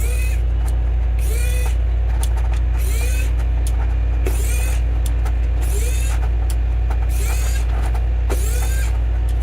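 Small electric precision screwdriver running continuously as it backs out the phone's midframe screws, a steady hum with a short rising-and-falling chirp repeating about every second and a half.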